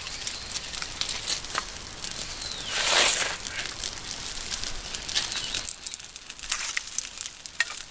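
Birch bark tinder and wood shavings crackling and snapping as a small kindling fire catches, with sticks being laid onto it. A brief louder rustle comes about three seconds in.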